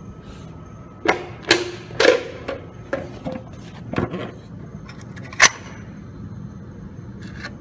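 A string of sharp knocks and clacks, about seven over five seconds, irregularly spaced, the loudest about five and a half seconds in, over a faint steady high-pitched tone.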